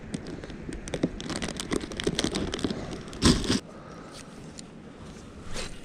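Handling noise in a plastic kayak: crinkling, scraping and small clicks as a freshly caught yellow perch is stowed in the open storage hatch. A louder burst of handling noise comes about three seconds in, and a smaller one near the end.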